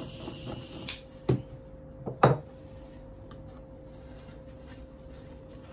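Handheld butane blowtorch hissing, cut off with a click about a second in. Two sharp knocks of tools being handled follow, the second louder.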